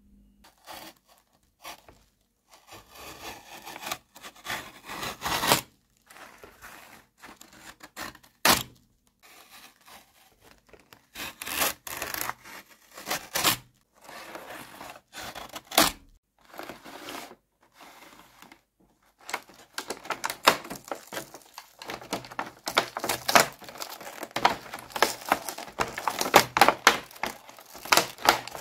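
Utility knife blade cutting and scraping through the cardboard backing of a plastic blister pack, with crinkling and tearing of the card and plastic. The strokes come in irregular bursts with short pauses, busier and louder in the last third.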